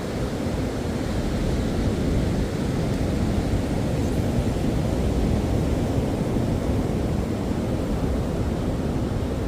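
Ocean surf washing in a steady, deep wash of noise that swells slightly about two seconds in.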